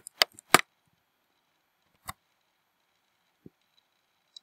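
Computer keyboard keys being pressed: three sharp clicks in quick succession, another about two seconds in, then a couple of fainter taps near the end.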